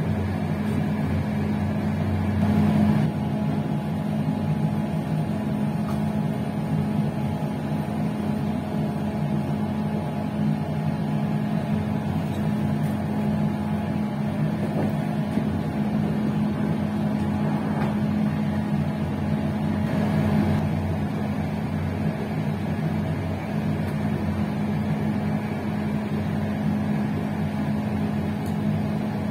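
Passenger train running steadily along the line, heard from its rear end: a constant hum over even rolling and rumbling noise.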